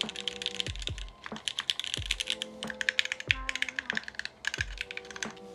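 Typing on a Vertex Angle R2 custom mechanical keyboard with Gateron Oil King linear switches and its case foam removed: a quick, irregular run of keystrokes that sounds louder and fuller.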